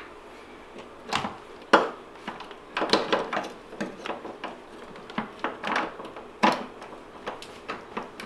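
Irregular metallic clicks, clinks and knocks of hand tools working the bolts of a car's front suspension, in short scattered bursts with brief gaps.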